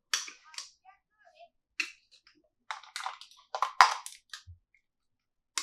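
Small plastic toy pieces handled close to the microphone: a string of short clicks, taps and rustles, the loudest cluster about four seconds in.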